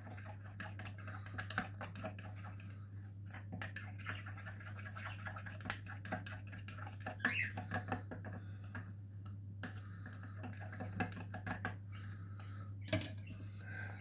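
A small spoon stirring and scraping thick bird hand-feeding formula in a thin plastic cup: a run of small irregular scratches and clicks over a steady low hum, with a sharper tap against the cup near the end.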